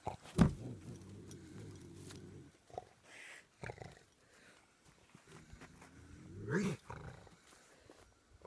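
Bobcat caught in a foothold trap growling at an approaching person: a sharp burst about half a second in, then a low drawn-out growl for about two seconds, and a second growl rising and falling in pitch about six seconds in.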